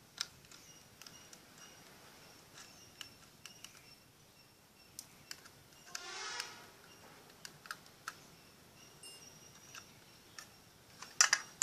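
Small clicks and taps of a screwdriver working on a plastic universal phone battery charger's clip and contacts. There is a short scrape about six seconds in and a loud cluster of clicks near the end.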